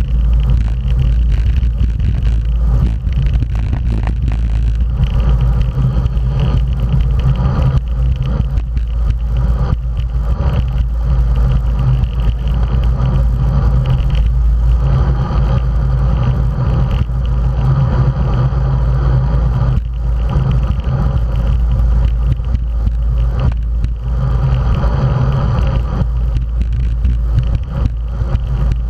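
Wind buffeting the microphone of an action camera on a road bicycle riding at race speed in a bunch, a loud steady low rumble, with the hiss of tyres on asphalt underneath.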